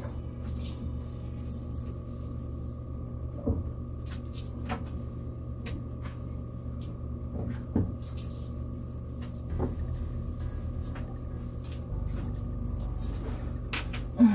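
Scattered soft knocks and small splashes from a plastic tub of soapy water in a shower stall as a wet cat is held and washed in it, over a steady low hum.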